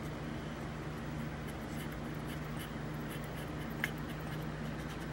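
Cotton swab scrubbing an alcohol-wetted circuit board where leaking capacitors have been removed: faint scratchy rubbing strokes over a steady low hum, with one sharp click near four seconds in.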